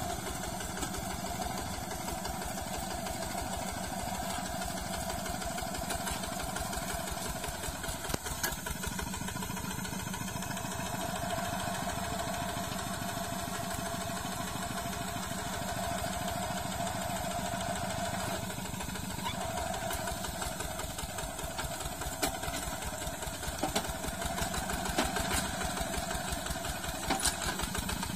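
Hand tractor's single-cylinder diesel engine running steadily under load in a rapid chugging rhythm as it drives cage wheels through flooded paddy mud. A few sharp clanks come near the end.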